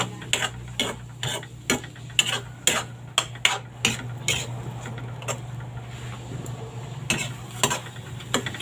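A metal spatula scraping and clanking against a metal wok as frying food is stirred: quick irregular strokes, which ease off about halfway through and pick up again near the end.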